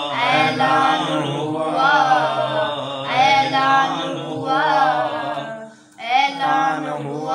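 Unaccompanied voices chanting a devotional Urdu kalam (manqabat) in long drawn-out sung phrases over a steady low sustained tone, with a brief break about six seconds in.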